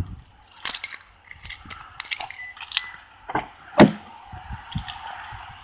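Footsteps crunching through fresh, several-inch-deep snow, in a run of short crackly crunches, with one loud sharp click about two-thirds of the way through.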